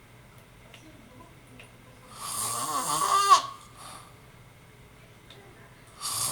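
Snoring in a slow cycle: quiet for about two seconds, then one loud snore lasting over a second whose pitch bends upward before it cuts off, and the next snore starting near the end.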